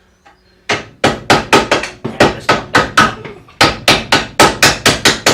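Rapid hammer blows on a broken screwdriver used as a drift, driving a seized shock absorber bolt out of the suspension. After a short pause the blows start and run on at about four a second.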